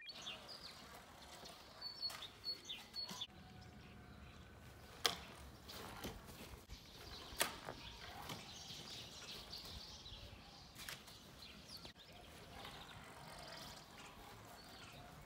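Faint outdoor ambience with a few short bird chirps about two to three seconds in, and two sharp clicks, about five and seven seconds in.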